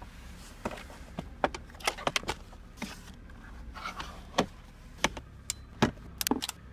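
Irregular sharp clicks and knocks from a phone being handled around a Honda CR-V's centre console and cup holder, over a low steady rumble. A quick cluster of clicks comes near the end.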